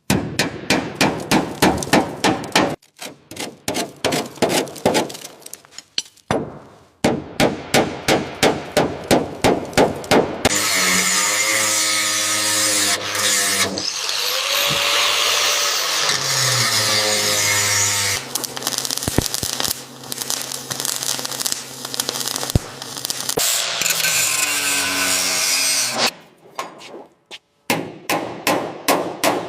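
Rapid hammering on metal, about six blows a second, in short runs. A power tool then runs for about fifteen seconds, its pitch wavering as it bears on the work. Hammering resumes near the end.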